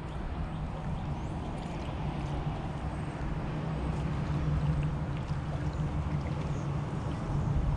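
Water gurgling and lapping around a kayak on a river, over a steady low rumble.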